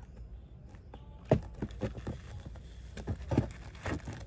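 Potting soil and cactus roots handled in a plastic pot: soil crumbling and rustling under the fingers, with irregular small knocks and clicks starting about a second in.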